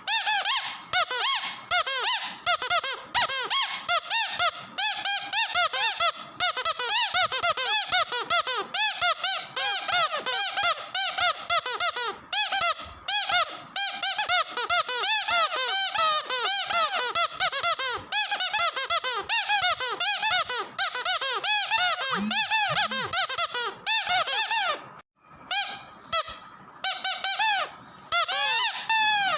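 Squeaky dog toy squeezed over and over in quick succession, a rapid string of high squeaks, each rising and falling in pitch. The squeaking thins out briefly near the end, then picks up again.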